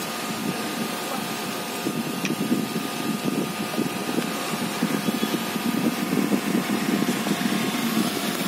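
Steady machine running noise: a low, unsteady rumble with a faint constant whine over it, going on without a break.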